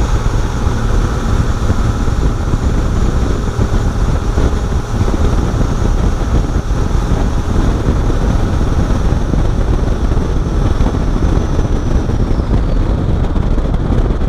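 First-gen 12-valve Cummins 5.9 L inline-six turbo diesel running steadily under way, with a faint high turbo whistle that drops in pitch near the end.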